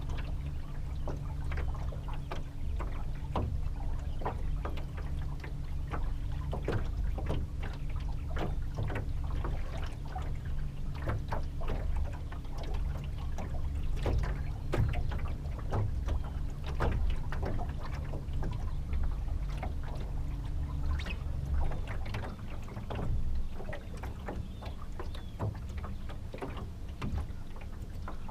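Small fishing boat on the water: a motor hums steadily while water slaps against the hull in frequent small splashes. The hum changes pitch about twenty seconds in.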